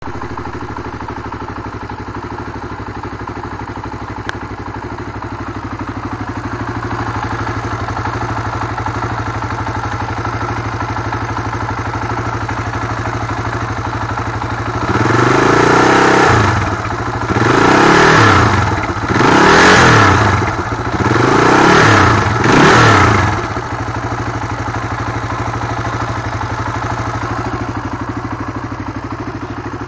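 1994 Suzuki DR350's single-cylinder four-stroke engine, fitted with a Mikuni TM33 pumper carburetor, idling steadily. About halfway through it is revved with five quick throttle blips, then settles back to idle.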